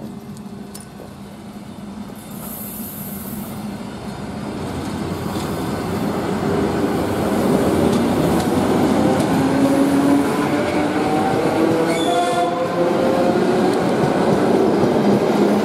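ET2M DC electric multiple unit pulling away and accelerating past, growing steadily louder over the first eight seconds. Several rising whining tones come in as it gathers speed.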